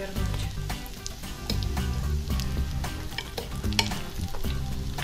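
Pirozhki sizzling in a pan of hot oil, with a steady crackle of small pops and one sharp click about four seconds in.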